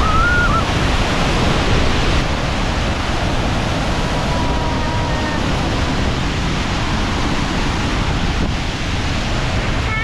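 A waterfall in full rainy-season flow: a very loud, steady rush of white water crashing over boulders at close range.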